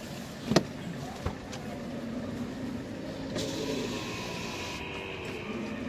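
Dromedary camels groaning low and long, growing louder in the second half, with one sharp knock about half a second in.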